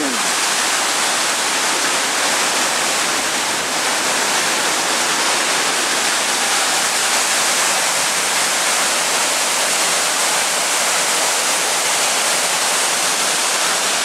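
Loud, steady rush of flowing river water, unbroken throughout.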